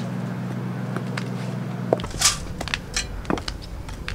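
Footsteps of a woman walking in Pleaser Flamingo-824 8-inch platform high-heeled sandals: a series of irregular sharp clicks and knocks, over a steady low hum in the first half.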